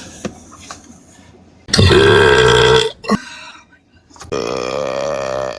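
A girl belches loudly for about a second. After a short pause, a second long belch follows.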